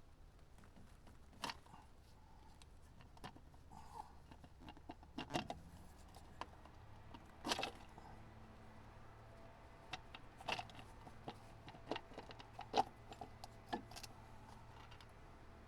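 Scattered light clicks and clinks of hand tools and metal parts being handled while a part is worked out of the machine, with a faint steady low hum underneath.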